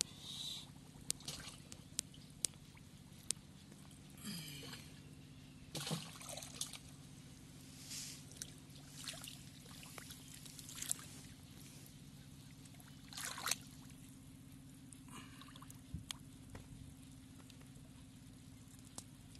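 Hands groping through mud and shallow muddy water: scattered splashes, drips and wet squelches every second or two, with a faint steady low hum underneath.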